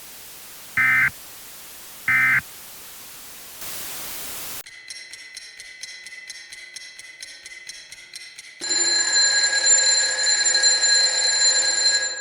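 EAS end-of-message data bursts: short, high digital chirps at about one-second spacing, the last two in the opening seconds. A brief burst of static and a rapid electronic ticking at about five a second follow. From about nine seconds in comes the loudest part, a steady electronic ringing with several tones held together, which cuts off abruptly near the end.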